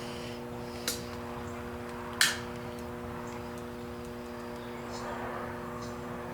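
Two sharp clicks, a quieter one about a second in and a louder one just after two seconds, over a steady low electrical-sounding hum.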